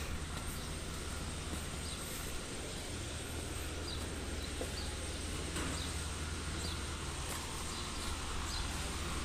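Outdoor yard ambience: a steady low rumble and a thin high whine, with scattered short bird chirps.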